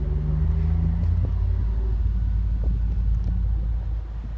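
A 2015 Hyundai Genesis 5.0's V8 engine idling, heard at the rear of the car by the exhaust, with a steady deep note.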